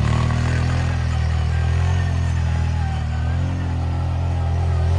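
ATV engine running steadily under throttle as the quad spins and slides through snow, easing off slightly mid-way and picking up again near the end.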